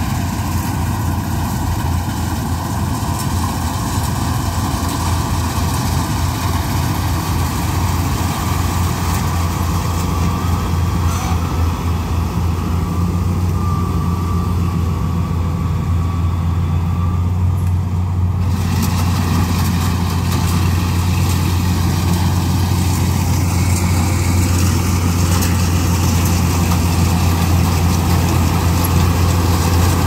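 Kubota DC-95 combine harvester's diesel engine running steadily under load while cutting rice, a continuous low drone that grows gradually louder as the machine comes close.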